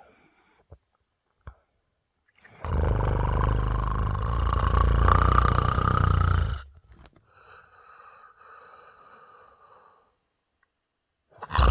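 A man snoring in his sleep. After a short silence comes one loud, deep snore on the in-breath lasting about four seconds, then a softer breathy out-breath, a pause, and the next snore starting near the end.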